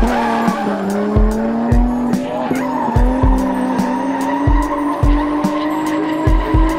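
Nissan 350Z's V6 engine held high in the revs while drifting, its pitch climbing slowly, with tyres skidding. Background music with a steady beat plays over it.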